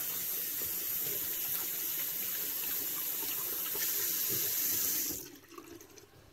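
Bathroom sink tap running while hands are rinsed under it. The water stops suddenly about five seconds in.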